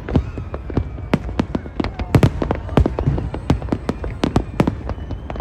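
Aerial fireworks going off in a rapid, irregular barrage, several sharp bangs a second over a continuous low rumble.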